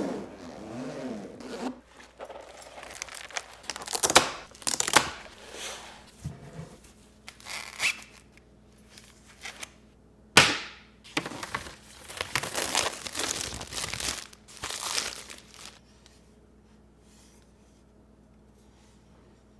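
Packaging being handled: irregular crinkling and tearing with a few sharper rips. It stops about sixteen seconds in.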